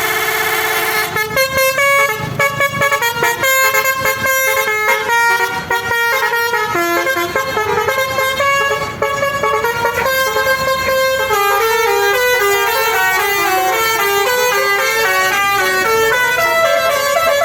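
Basuri telolet multi-trumpet air horn on a tour bus playing a melody, its notes stepping up and down in quick succession, with a fast warbling trill in the first second.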